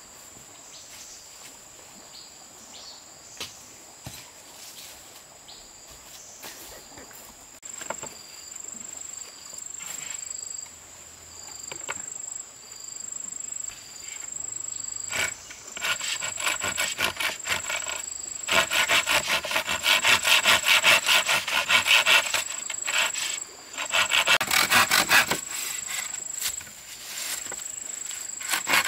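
Hand saw cutting wood in bouts of back-and-forth strokes, scattered at first, then quick, steady and louder through the second half. A thin, steady, high insect buzz runs behind it.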